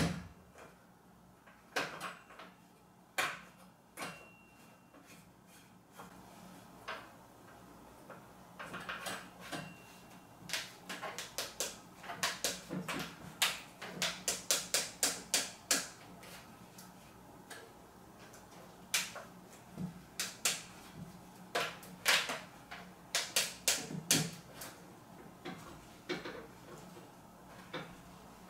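Small clicks and knocks of a chrome shower-mixer fitting being turned and threaded on by hand, hand-tight only since it seals with a rubber packing. The clicks are scattered, with a run of quick ones, about four a second, through the middle.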